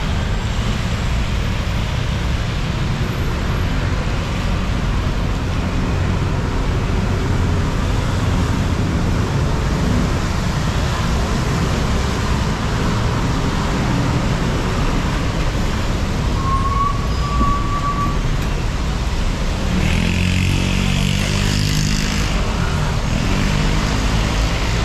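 Steady road traffic on a rain-wet street: cars and motorbikes passing in a continuous low rumble. A brief high tone sounds about two-thirds of the way through, and a vehicle engine passes close near the end.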